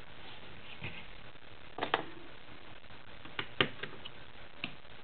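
Light plastic clicks and taps as Lego minifigures are picked up and pressed back onto their small stands. There is a close double click about two seconds in, a quick cluster of clicks around three and a half seconds, and a single tap near the end.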